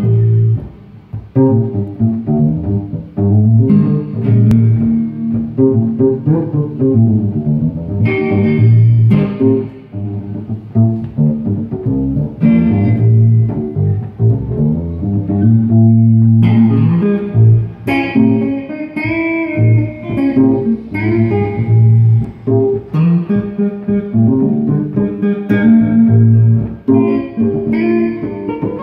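G&L electric guitar and G&L electric bass played together in an amplified jam, the bass holding a line of low notes under the guitar's plucked notes and chords.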